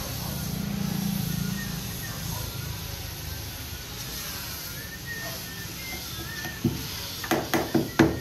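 A hammer knocking on the wooden door while it is fitted into its frame: five sharp knocks in the last second and a half, the last one loudest.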